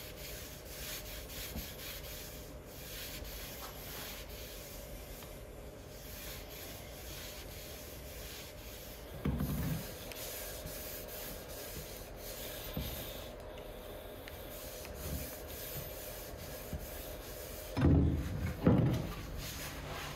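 A gloved hand rubbing a wooden pickaxe handle with a small pad: a steady, scratchy rubbing of pad on wood. A low thump comes about nine seconds in, and two louder thumps come near the end.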